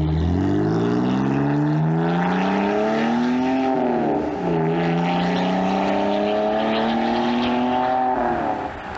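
BMW Z3's six-cylinder engine through a straight-piped, muffler-deleted exhaust, accelerating hard and pretty loud. Its pitch climbs for about four seconds, drops at a gear change, then rises again through the next gear until the throttle comes off near the end.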